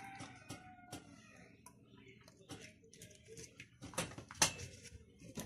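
Soft rustling and scattered light clicks of a thin güllaç wafer sheet being handled, soaked with milk and pressed flat into a glass baking dish, with a couple of sharper taps about four seconds in.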